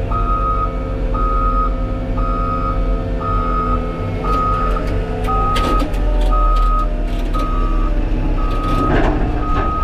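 Heavy-equipment backup alarm beeping steadily about once a second over a diesel engine running, with metallic clanking about halfway through and again near the end.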